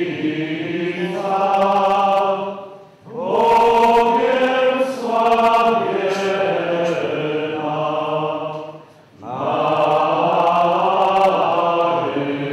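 Voices singing together in a slow, chant-like hymn of long held notes, in phrases broken by breath pauses about three seconds in and again about nine seconds in.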